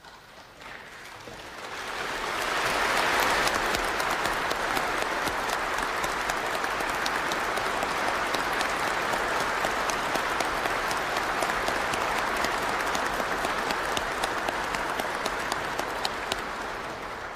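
A large crowd applauding, a dense patter of many hands clapping. It swells over the first two seconds, holds steady, then dies away at the end.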